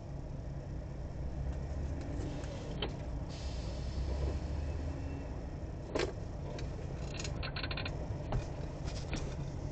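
Truck engine idling steadily, with a few sharp clicks and a short rattle about seven seconds in.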